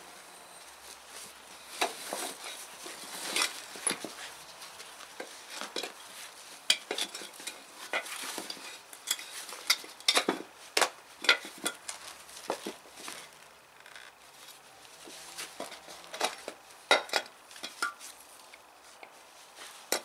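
An old wheelbarrow tire and its inner tube being worked off a steel rim by hand: irregular clinks and knocks of the metal rim, with rubber scuffing and rustling in between.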